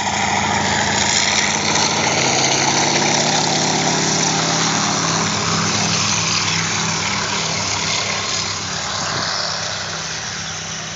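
Radial piston engine of an agricultural aircraft running steadily as the plane turns and rolls away down a grass strip. The engine grows fainter over the last few seconds as it moves off.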